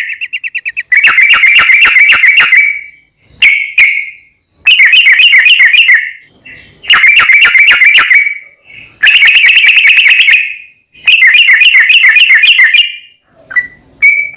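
Yellow-vented bulbul (trucukan) song: loud bubbling phrases of fast repeated notes, each phrase about two seconds long. Six phrases come with short gaps between them, and a brief short phrase falls among them about three and a half seconds in.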